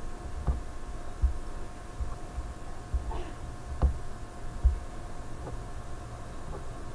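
Computer mouse being scrolled and clicked: a few soft clicks and low thumps over a steady electrical hum.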